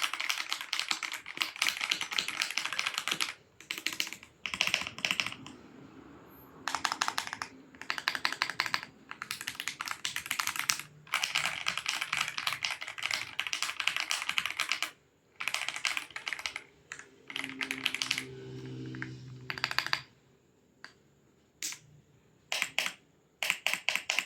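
Typing on an Aula F87 Pro mechanical keyboard with Graywood switches: fast runs of key clacks lasting a few seconds each, broken by short pauses, with a few separate key presses near the end.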